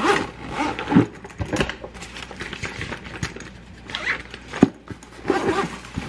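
Soft insulated lunch boxes being packed and zipped shut: irregular knocks of plastic containers and ice packs going in, then the rasp of the zippers being pulled closed near the end.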